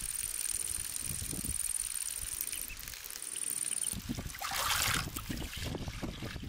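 A thin stream of water trickling from a pipe into a water trough, with wind rumbling on the microphone. A hand splashes in the trough water about four and a half seconds in. A thin, high, steady tone sounds through the first half.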